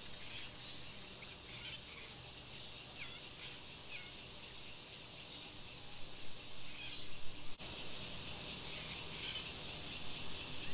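Outdoor ambience: birds chirping now and then over a steady high hiss.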